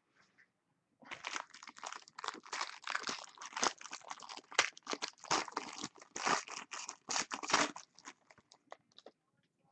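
Gold foil wrapper of a trading-card pack being torn open and crinkled by hand, a dense crackle that begins about a second in, then thins to a few faint crinkles near the end.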